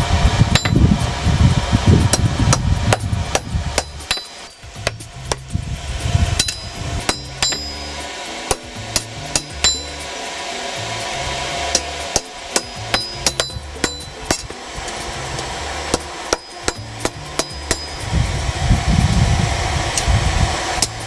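Hammer striking hot steel on an anvil again and again, at an irregular pace, each blow ringing briefly: a sword crossguard being forged to widen its eye. A low rumble runs underneath.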